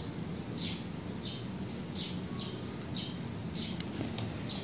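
A small bird chirping over and over, short high chirps roughly every half-second, with one sharp tick near the end.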